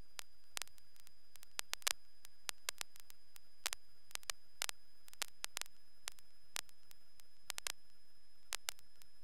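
Steady hiss on a light aircraft's intercom/radio audio feed, broken by irregular sharp clicks, about two a second, over a faint steady high tone.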